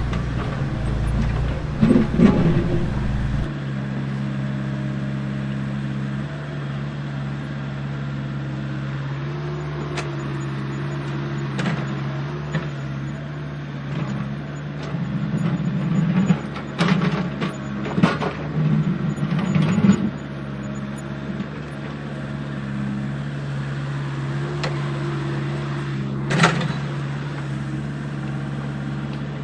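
Steady electric motor hum of a toy RC excavator, with scattered scrapes and clicks as the bucket works through soil and its tracks and joints move.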